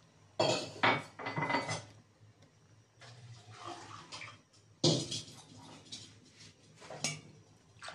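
Boiling water poured from a steel cup into a pan of fried rice in a few separate pours, with clinks of the metal cup against the pan.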